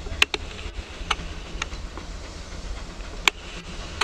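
Narrow-gauge steam train, led by a Baldwin 2-8-0 Consolidation locomotive, passing at a distance: a steady low rumble with a few sharp clicks, the loudest about three seconds in.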